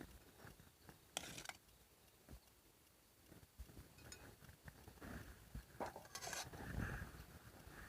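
Faint handling noises while food is readied: light clicks and knocks of utensils and containers, with short rustling bursts about a second in and again around six seconds in.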